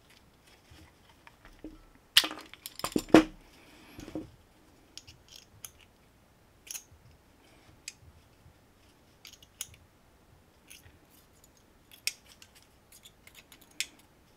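Small metal clicks and clinks of hand pliers gripping and bending wire into a hook eye, with a cluster of louder clicks about two to three seconds in and scattered single clicks after.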